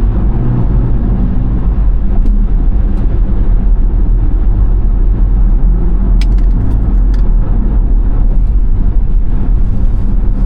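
Steady road and engine noise of a car cruising on the freeway, heard from inside the cabin, a low rumble with no change in speed. A few faint ticks come about six to seven seconds in.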